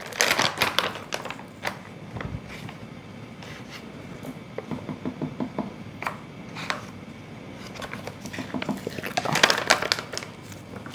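Rustling of a paper guar gum pouch being opened and closed, with light clicks and taps of a small measuring spoon. The sounds come in scattered bursts, busiest at the start and again about nine seconds in.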